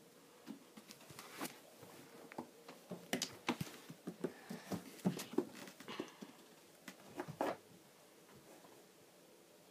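A cat batting at Lego minifigures hung on strings and pawing into a school bag: irregular light taps, knocks and rustles that die away about three-quarters of the way through.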